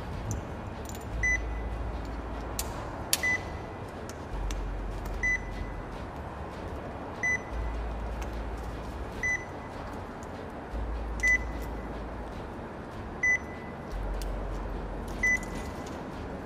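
A short, high electronic beep repeating about every two seconds, over a steady background hiss and a low hum that comes and goes.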